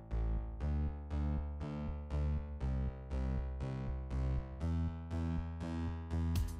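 Background music: a synthesizer keyboard repeating short, quickly fading notes at an even pulse, about two to three a second, over a bass line.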